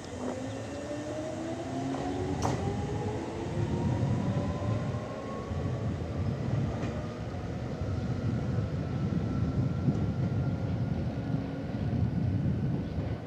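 Electric commuter train pulling away, its traction-motor whine rising steadily in pitch as it accelerates, over a growing rumble of wheels on rail, with a single sharp click about two and a half seconds in.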